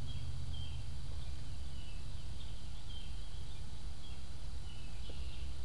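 Small birds chirping repeatedly in short high calls over a steady low hum.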